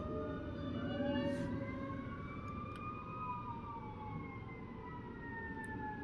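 Emergency vehicle siren wailing faintly in the distance, one slow rise in pitch to a peak partway through and then a long fall.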